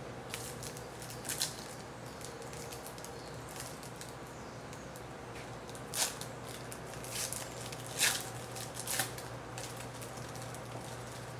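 2009 Donruss Classics trading cards being handled and flipped through: a few short papery rustles and flicks, clearest about six, eight and nine seconds in, over a steady low hum.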